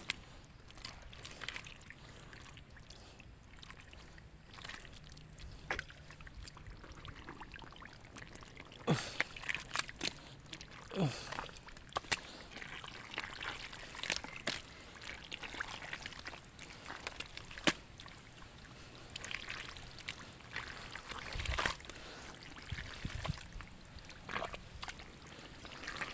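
Shallow pond water sloshing and trickling, with irregular sharp splashes as the muddy water is disturbed.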